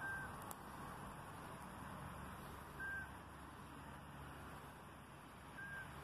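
Three short whistled bird notes, evenly spaced about three seconds apart, over faint background hiss.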